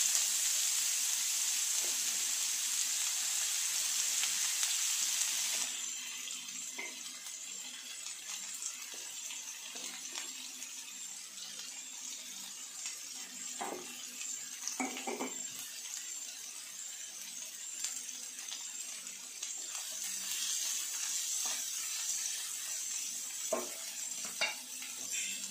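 Sliced onions sizzling in hot coconut oil in a nonstick frying pan. The sizzle is loud for the first five or six seconds, then settles to a quieter hiss with a few light knocks.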